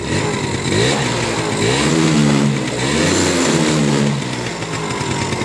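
1993 Yamaha Razz moped's 49 cc two-stroke single-cylinder engine revved up and down a few times with the throttle, then settling to a steady idle about four seconds in. It has only just been kickstarted from cold and is barely warmed up, yet runs well.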